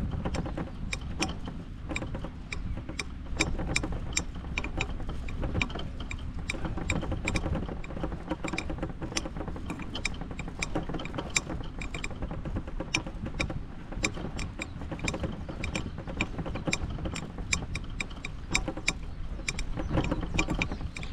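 Golf cart driving across a fairway: a steady low rumble with many irregular clicks and rattles.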